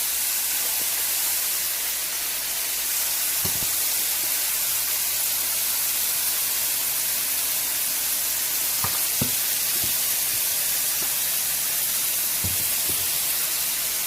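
Chicken frying, a steady sizzle, with a few faint clicks.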